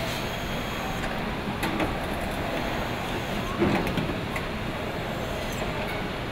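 Steady machinery din of a car assembly line, with scattered clicks and knocks of parts being handled and one louder knock about three and a half seconds in.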